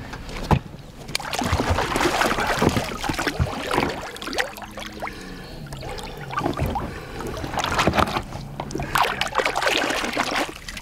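Water splashing and sloshing against the boat's side as a musky is held in the river by hand to revive it and let go. The splashing comes in two busier bouts, one early and one near the end, with a calmer stretch between.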